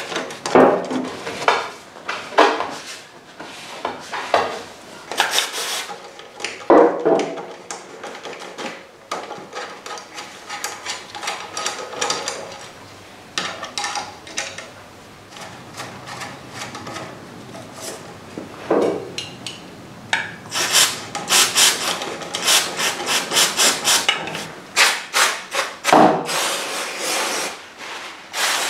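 Brush scrubbing the brake-dust-jammed bobbins of a Suzuki GSX1400's floating front brake disc, in irregular bursts of rubbing strokes. This is the cleaning that frees the bobbins so the outer rotor can float again and cure the lurching, uneven braking. In the second half come short hisses of aerosol brake cleaner, sprayed onto a rag near the end.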